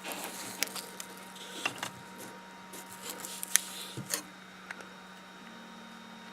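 Handling noise from a small FPV racing quad being turned over in the hand: a scattering of small clicks, taps and rustles, the sharpest about three and a half seconds in, over a faint steady hum.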